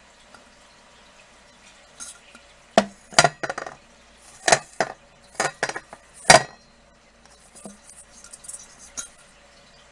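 Hard clinks and knocks of glass and other hard objects being handled, a quick cluster of about a dozen sharp strikes between about three and six and a half seconds in, then a few fainter taps near the end.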